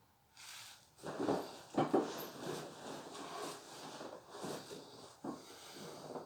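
A sleeper stirring in bed: about six seconds of irregular rustling, loudest a second or so in, rather than a snore.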